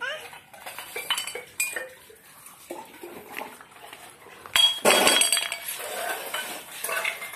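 Small clinks of a stainless steel tumbler as a baby drinks from it, then the tumbler clattering onto a concrete floor about four and a half seconds in, with a short metallic ring.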